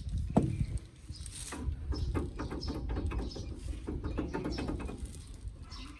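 Clinks and knocks of a Mahindra Bolero 4x4 pickup's front driveshaft being handled and worked loose underneath the truck, with a sharp knock about half a second in. Birds chirp in the background.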